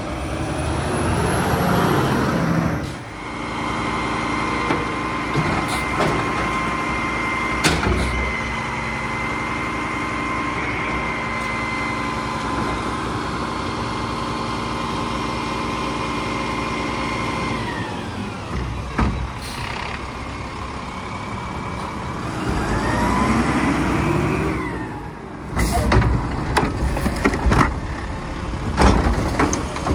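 Heil Curotto Can automated garbage truck working its hydraulic arm. The engine is revved with a steady hydraulic whine while the arm raises the carry can overhead to dump it into the hopper, then winds down. Later a whine rises and falls in pitch as the arm moves again, and it ends in clanks and bangs as the gripper grabs and tips a wheeled cart.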